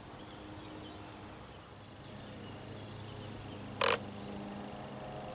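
A radio-controlled bait boat running across the lake, its motors a faint steady hum, with faint bird chirps. A single short sharp noise a little under four seconds in is the loudest sound.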